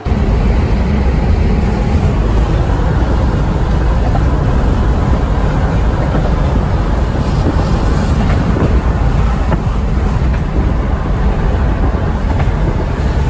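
Wind and road noise rushing in through an open car window at driving speed, with heavy wind buffeting on the microphone.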